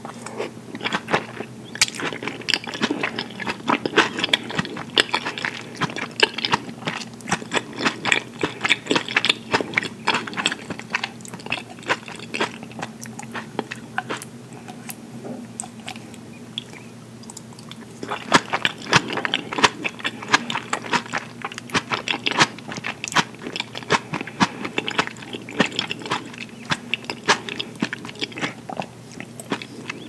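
Close-miked chewing of fresh mozzarella and tomato slices dressed with balsamic, many small wet mouth clicks. Two bouts of chewing with a few seconds' lull near the middle.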